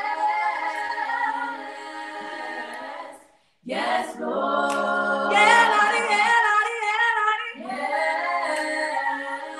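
A young mixed-voice group of five siblings singing a cappella in close harmony, holding sustained chords. The singing breaks off for about half a second a little past three seconds in, then comes back on a new chord.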